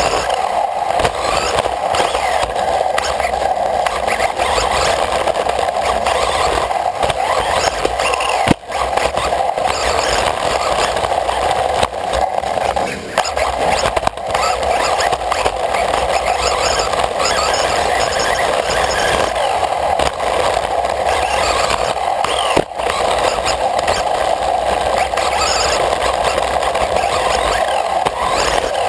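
RC racing buggy driving laps on a dirt track, heard from a camera mounted on the car: a steady drivetrain and tyre racket that drops out abruptly a few times.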